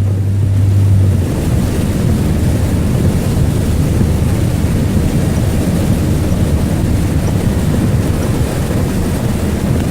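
Truck driving on a flooded, rain-soaked road, heard from inside the cab: a steady rush of water spray and tyre noise over the engine, with a low hum that stops about a second in.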